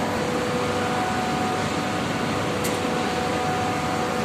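Steady drone of an air-cooled chiller's fans running, with a couple of faint steady hum tones, and one light click a little past halfway.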